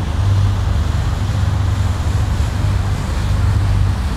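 Sightseeing boat's engine running with a steady low hum, under a constant rush of wind and water.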